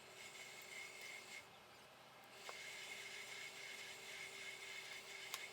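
Very faint sounds of a knife trimming fat from raw chicken thighs on a cutting board: a soft hiss with a couple of light ticks.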